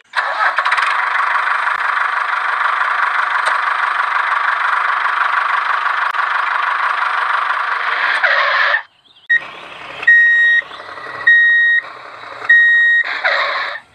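Small DC gear motor of a homemade toy tractor whirring steadily as it drives, for about nine seconds. After a short break it is quieter, with three high beeps about a second apart like a reversing alarm.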